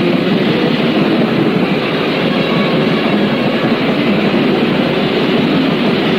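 Raw, muddy 1980s underground metal demo recording: distorted guitars and drums blurred into a loud, dense, unbroken wall of noise with no clear notes standing out.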